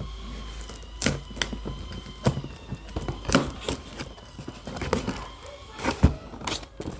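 Toy packaging being cut and worked open by hand: irregular clicks, snips and crinkles of plastic and cardboard, several seconds apart and uneven in strength.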